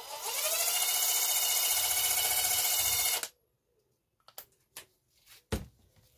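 Cordless impact driver spinning an impact socket against a cloth, its motor whining up to speed, running steadily for about three seconds and then stopping abruptly; this wipes touch-up paint off the socket so the stamped size number stands out. A few light clicks and knocks follow as the tool and socket are handled.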